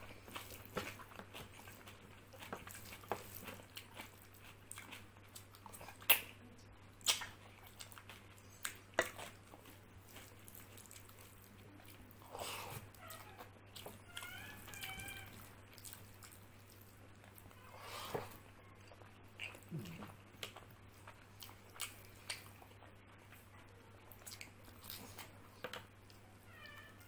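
Close-up eating sounds of rice and curry eaten by hand: wet chewing, lip smacks and sharp mouth clicks, a few of them loud. There is a brief squeaky sound about fourteen seconds in, over a steady low electrical hum.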